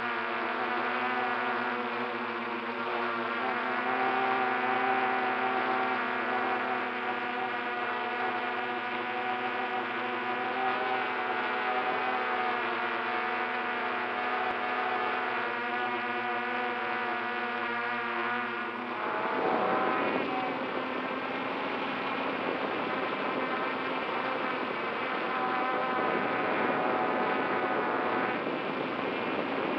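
Drone's electric motors and propellers buzzing steadily in flight, heard from the camera on board. About 19 seconds in the even whine breaks into a rougher, noisier sound, then steadies again.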